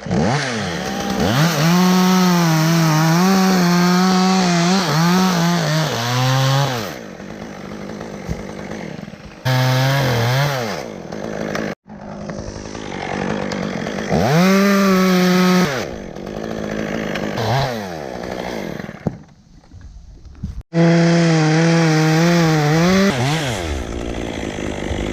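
Chainsaw revving up and cutting wood in several bursts of a few seconds each, dropping back toward idle between cuts.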